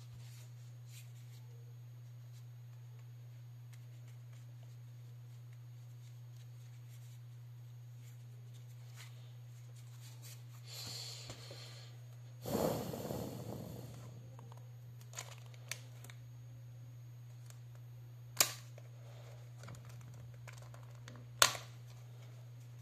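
Hands handling a small plastic feature phone, the iKU V100: a rubbing, scraping stretch about halfway, then a few sharp plastic clicks, the loudest near the end as the back cover is pried at the seam. A steady low hum runs under it.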